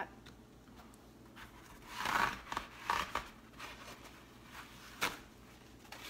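Paper towel rustling and rubbing as it is pressed into a plastic container and handled, in several short bursts, with a sharp click about five seconds in.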